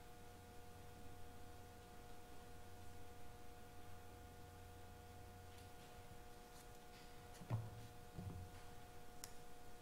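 Near silence: room tone with a steady faint hum. A lower hum drops out a little past halfway, two soft low thumps come about seven and a half seconds in, and a faint click sounds near the end.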